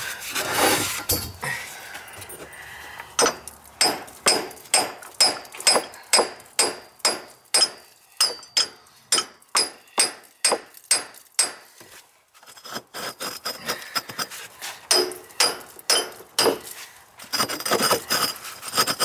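A hand tool working metal pipework in steady rhythmic strokes, about three a second, each with a faint metallic ring. The strokes pause briefly past the middle, then resume and come faster near the end.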